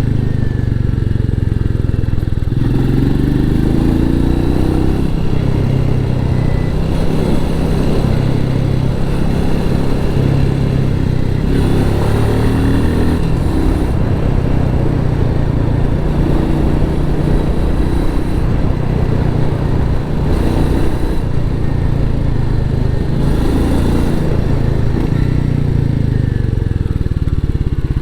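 Royal Enfield Meteor 350's 349 cc single-cylinder engine running through its stock exhaust, the exhaust note rising and falling several times with the throttle.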